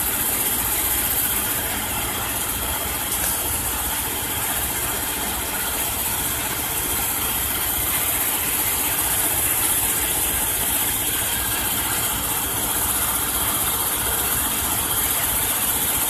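Steady machine noise: a low running hum under a constant high-pitched hiss, with no separate strokes or clicks standing out.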